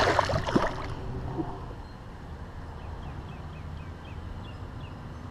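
Water splashing for about a second as a peacock bass is released from the hands and kicks away at the surface. After that, a steady low rumble in the background.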